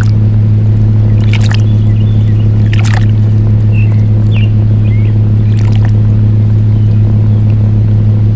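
A loud, steady low machine hum, unchanging throughout. Short high chirps are scattered over it, and three brief hissing sweeps come at about one and a half, three and nearly six seconds in.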